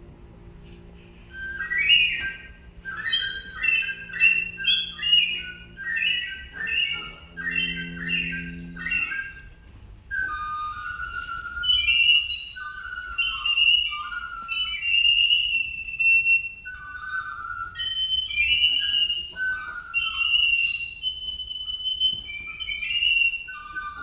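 Rapid, bird-like chirps and whistled calls, then from about ten seconds in longer gliding, warbling calls, performed as bird song in a concert piece. Under the first part, the accompaniment holds a low note that stops about nine seconds in.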